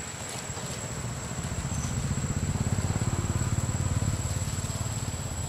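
A passing motor vehicle's engine, a low pulsing rumble that grows louder from about a second and a half in, peaks around four seconds, then fades. A steady high-pitched whine runs underneath.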